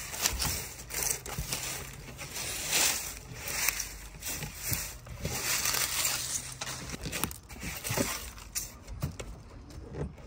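Irregular crunching and rustling of dry material in uneven bursts.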